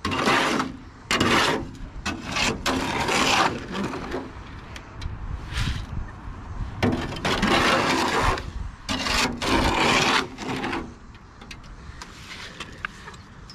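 Square-point shovel scraping wet concrete mix out of a wheelbarrow and dropping it into a post hole, in several long scrapes with short pauses between them. It is quieter near the end.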